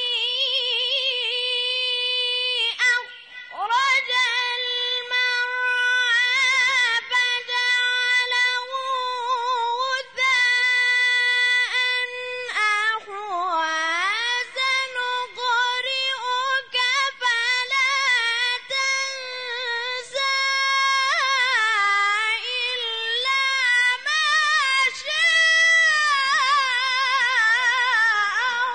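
A teenager's high voice reciting the Qur'an in the melodic, drawn-out mujawwad style: long held notes with rippling melismatic ornaments, broken by a few short pauses for breath.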